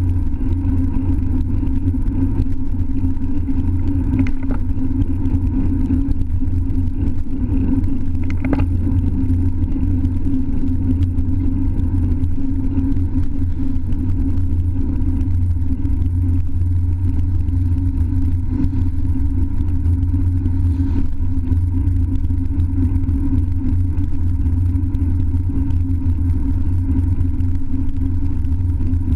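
Steady low rumble of riding noise, wind buffeting and tyre rumble on a wet road, picked up by a GoPro Hero 3 mounted on a road bike's handlebars. Two faint clicks come about four and eight seconds in.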